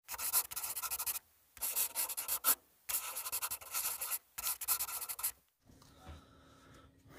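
Marker pen scratching across a journal's paper page as a word is hand-lettered: four spells of quick, short strokes with brief pauses between them, stopping about five and a half seconds in.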